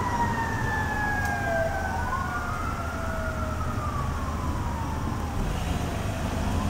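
Two fire truck sirens wailing at once, each rising and falling slowly in pitch over several seconds and out of step with the other, over a low rumble.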